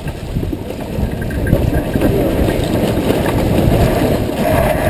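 Wind buffeting the microphone and water rushing along the hull of a sailboat under way, a steady rumble that grows louder toward the end.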